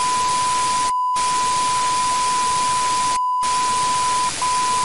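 Loud static hiss with a steady beep running through it, both cutting out abruptly twice: a digital glitch sound effect.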